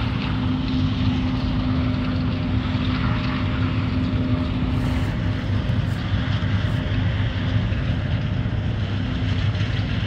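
Machinery running steadily: a constant low hum with a steady higher tone above it, holding an even pitch and level.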